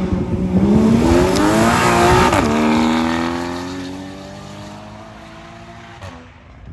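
A sports car's engine accelerating hard as it pulls away, the revs climbing and then dropping at a quick upshift about two seconds in. It then pulls again in the next gear while fading into the distance.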